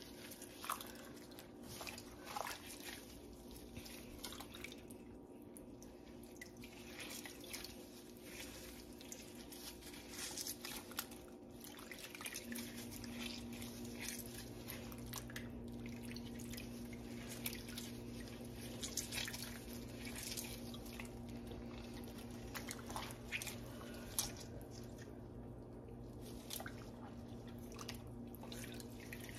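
Faint drips and small splashes of hot whey as mozzarella curd is dipped and stretched by hand. A low steady hum joins about halfway.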